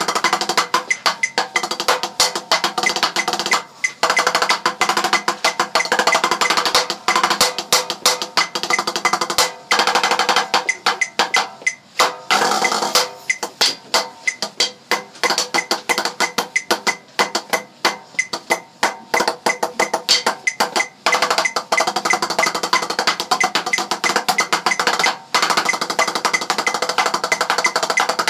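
Music built from rapid, dense percussive strikes with pitched ringing notes, broken by a few short pauses.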